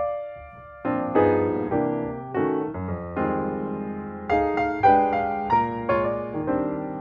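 Background piano music: notes and chords struck one after another, each dying away, with a brief softer lull about a second in.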